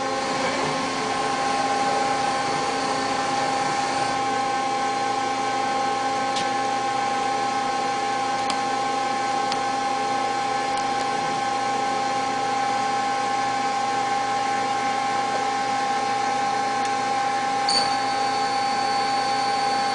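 Mazak Quick Turn 20 CNC lathe spindle running steadily at speed: a constant, very quiet machine hum with several steady whining tones. A faint high whine joins near the end.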